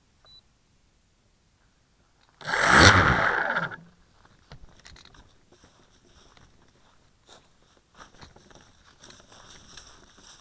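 Handling noise on the plane-mounted action camera: about two and a half seconds in, one loud crunching scrape lasting about a second and a half, then faint crackling and rustling as the plane is moved over dry grass.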